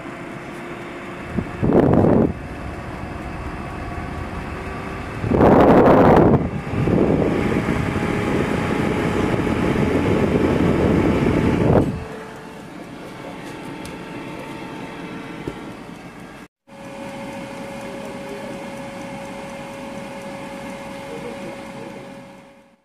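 Mondial 4-litre air fryer's fan running steadily as it preheats, with louder rushing surges about two seconds in and from about five to twelve seconds in.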